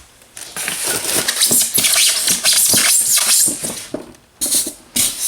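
Box packaging rustling and scraping as a typewriter is pulled out of its shipping box: a dense crackle for a few seconds, then a few short rustles near the end.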